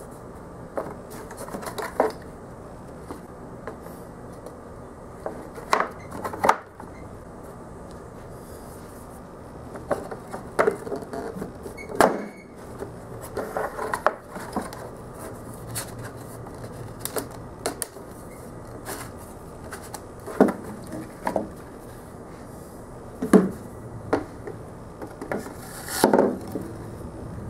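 Scattered light knocks, taps and scrapes of white PVC pipe being pushed through holes in a plywood board and a plastic bucket lid being handled on a wooden workbench, about a dozen separate knocks.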